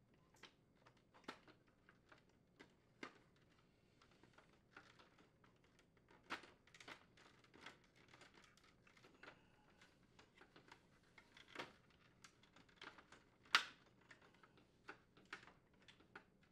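Plastic refrigerator parts clicking and knocking as the new center crisper slide rail support is worked into the crisper cover's slots and snapped into place: scattered light clicks, the loudest about thirteen and a half seconds in.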